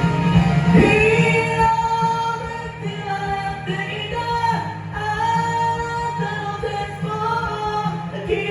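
A solo voice singing a J-pop rock song over a band backing track, the vocal line coming in about a second in.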